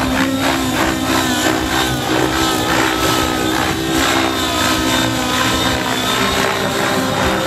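YS 91 SRS two-stroke glow engine in an Align T-Rex 700N RC helicopter running at high revs in flight, its note wavering up and down as the rotor load changes, with the main rotor blades chopping over it.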